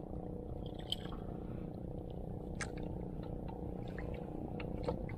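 A steady low engine drone, with a few sharp clicks from handling the freshly caught lizardfish and the metal jig on its hook.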